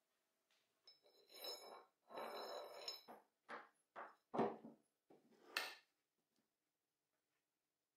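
Light metal clinks and knocks as steel workpieces and a hand tool are handled and set down on a workbench, about eight short separate hits, some with a faint high ring. They start about a second in and stop near the six-second mark.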